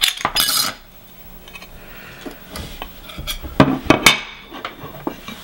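Metal parts of a hard drive clinking and scraping as it is taken apart by hand: the aluminum platter and spacer rings are worked off the spindle. A short scrape comes at the start, then scattered light clicks, loudest in a quick cluster about three and a half to four seconds in.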